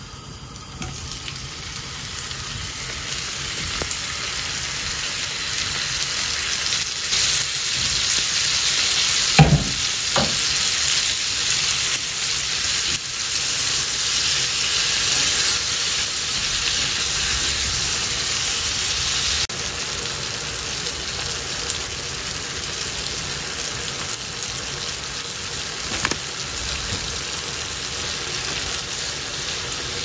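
Diced tomatoes and shallots frying in butter in a hot skillet, a steady sizzle that grows louder over the first few seconds as the tomatoes go in. There are two sharp knocks about nine and ten seconds in.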